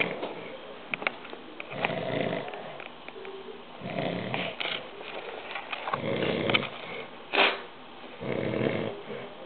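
Loud snoring, four drawn-out snores about two seconds apart, with a short sharp sound just before the last one.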